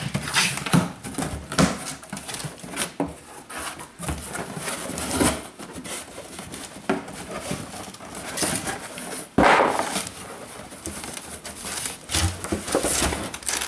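Cardboard box being opened and unpacked by hand: a blade slitting the packing tape, then flaps pulled open with irregular rustling and scraping as a molded cowl cover is handled against the cardboard. There is a sudden loud rasp about nine seconds in.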